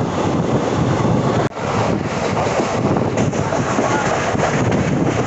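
Running noise of a moving passenger train heard from on board, a steady rush of wheels and rail with wind buffeting the microphone. It drops out for an instant about one and a half seconds in.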